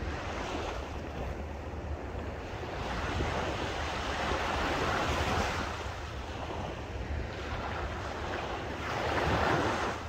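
Small, calm sea waves breaking and washing up onto a sandy beach, swelling about halfway through and again near the end.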